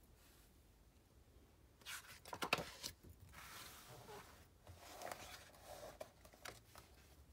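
Paper handling from turning the page of a picture book: a quick cluster of crisp paper crackles about two seconds in, then a softer rustle and slide of the page, with a few light clicks near the end.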